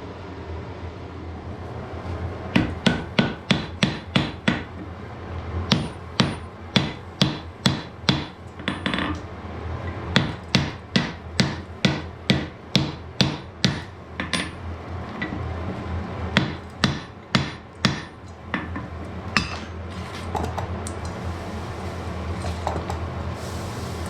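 Blacksmith's hammer striking a wrought-iron axe head on the anvil in runs of several blows, about two or three a second, with short pauses between runs and only scattered light taps near the end. A steady low hum runs underneath.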